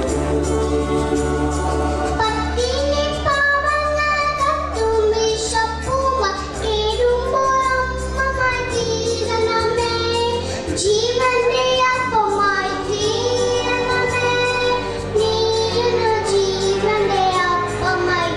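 A young girl singing into a microphone over a karaoke backing track; her voice comes in a couple of seconds in with held, wavering notes over the steady backing.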